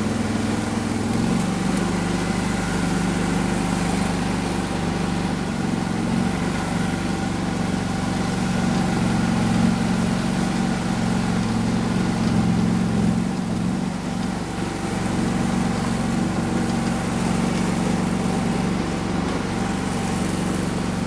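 Argo HDI 8x8 amphibious ATV's Kohler diesel engine running steadily as the tracked machine crawls through swamp water; its pitch steps lower about a second in and then holds.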